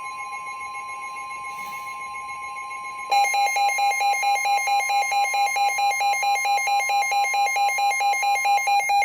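Emergency alert tones of a NOAA Weather Radio flash flood warning: steady electronic alarm tones at first, then about three seconds in a louder alarm starts, beeping rapidly at several pulses a second. They signal that a warning message is about to be read.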